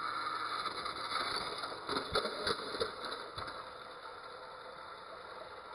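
Small electric motors of battery-powered toy train engines whirring steadily as they push head-on against each other on plastic track, with a few sharp plastic clacks about two seconds in as one engine is shoved off the track.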